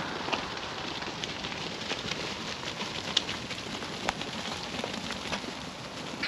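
Steady crackling, rustling background noise with scattered small clicks and a few brief high-pitched sounds.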